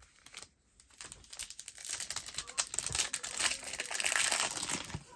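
Foil wrapper of a Bowman baseball card pack crinkling as it is handled and torn open. The crackling starts about a second in, builds to its loudest in the second half, and eases near the end.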